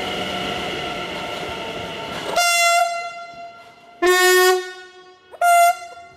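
NS SGMm sprinter train sounding its typhoon horn: three short, loud blasts, a high note about two and a half seconds in, a lower two-tone blast about a second and a half later, and another high note near the end. Before the horn, the steady noise of trains in the station.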